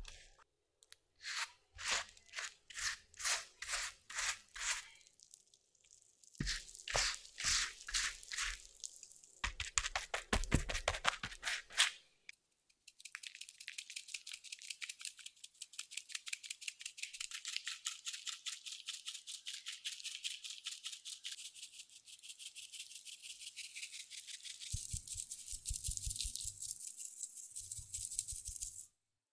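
A pastry brush working melted butter onto freshly baked stollen loaves in quick strokes, about two a second. Then a fine-mesh sieve is shaken over the loaves to dust them with powdered sugar, a fast, dense patter, with a few low knocks near the end.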